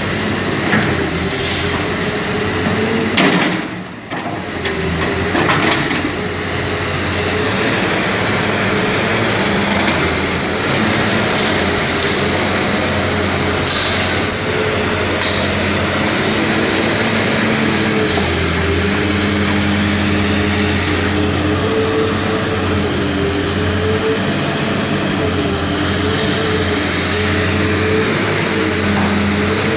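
Diesel engine of a Caterpillar hydraulic excavator running under changing load as it demolishes an old brick and plaster wall, with several crashes of falling masonry in the first few seconds and another about halfway through.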